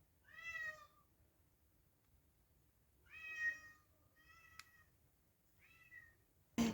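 A cat meowing four times, short separate calls a few seconds apart, the first two louder than the last two.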